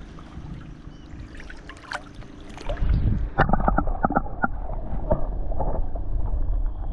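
Water lapping at a camera held at the surface, then, about three seconds in, the sound turns muffled as the camera goes underwater, with a louder low rumble and a run of clicks from water moving around it.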